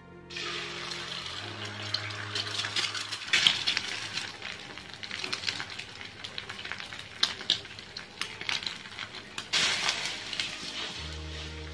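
An egg goes into hot oil in a nonstick frying pan and at once sizzles and crackles, with scattered sharp pops of spitting oil. Near the end a stream of water pours into a pan with a splashing hiss.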